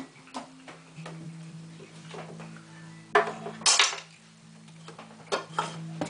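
Small hard objects clinking and clattering as a pet vervet monkey handles them, with two louder rattles a little past halfway, over a low steady hum.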